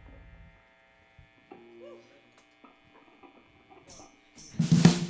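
Steady amplifier hum with a few faint notes between songs. Near the end come two short high ticks, then the full rock band kicks in with drum kit, bass and electric guitar.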